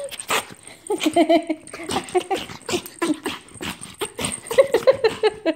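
A Japanese Chin dog whining and yipping excitedly in greeting, in a run of short, bending high calls, amid many short clicks and rustles.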